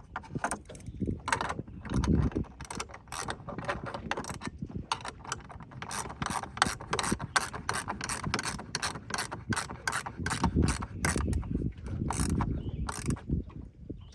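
Quick runs of sharp clicks, several a second with short pauses, from a hand tool tightening the mounting hardware of an anchor rope roller on a bow pulpit.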